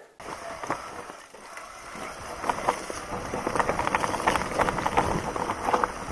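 Mountain bike rolling down a forest trail of dry leaves, pine needles and stones: tyre noise with many short clicks and rattles, starting about two seconds in and growing louder as the bike picks up speed.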